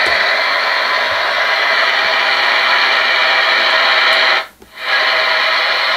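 Loud steady hiss of radio static from a portable radio used as a spirit box, cutting out for a moment about four and a half seconds in.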